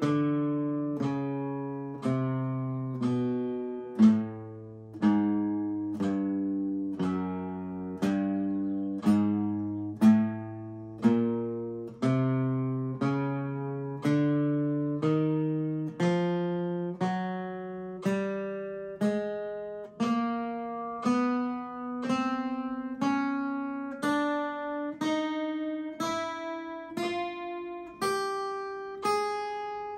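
Acoustic guitar playing the spider finger exercise: single picked notes, one a second, stepping gradually up in pitch.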